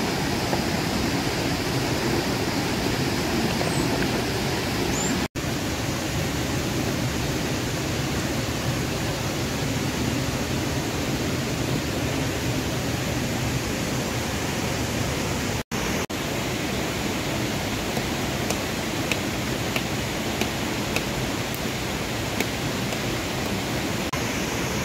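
A steady rushing noise, broken by two sudden brief dropouts about five and fifteen seconds in, with a few faint ticks near the end.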